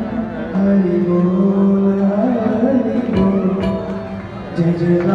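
Hindu devotional aarti song: a voice singing long held notes that step up and down, with instrumental accompaniment and a few sharp strikes about three seconds in.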